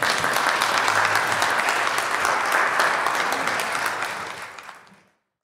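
Congregation applauding with dense, rapid clapping. It fades out over the last second or so.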